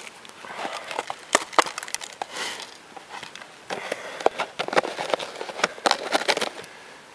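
A hand working a dog-proof raccoon trap in snow and setting the iced-tea carton that caps it back over it: scattered sharp clicks and crackles with short crunching, rustling stretches.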